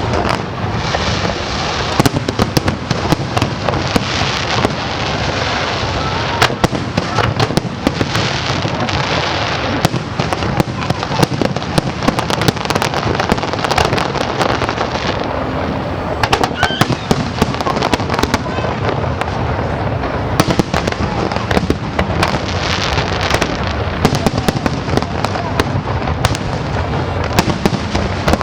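Fireworks display with shells bursting in quick succession: a continuous barrage of sharp bangs and crackling, several reports a second, with no let-up.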